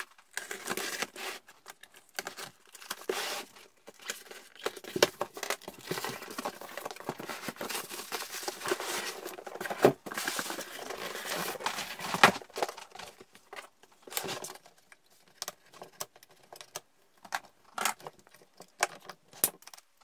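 Cardboard shipping box being opened: packing tape torn, flaps pulled back, and plastic wrapping crinkling and rustling as the contents are pulled out. In the last few seconds the sound turns to scattered sharper knocks and taps.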